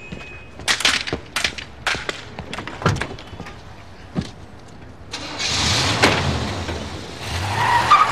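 A run of sharp knocks and clatters, then a 1980s Chevrolet Caprice station wagon's engine starting about five seconds in and revving.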